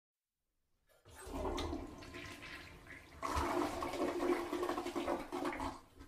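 Toilet flushing in a small bathroom: after about a second of silence, a rush of water starts, surges louder about halfway through, and drains away near the end.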